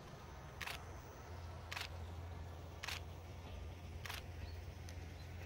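Four camera shutter clicks about a second apart, over a steady low rumble.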